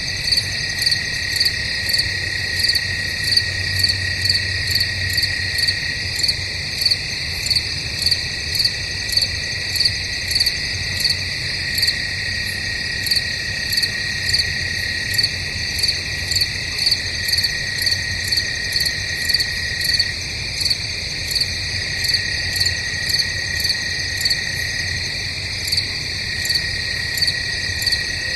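Crickets chirping at night in a chorus: a steady, unbroken trill underneath and a sharper, higher chirp repeating evenly about one and a half times a second.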